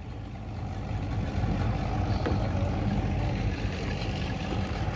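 Fishing boat under way, its engine running steadily with a low rumble and wind and water noise. The noise builds slightly over the first second, then holds steady.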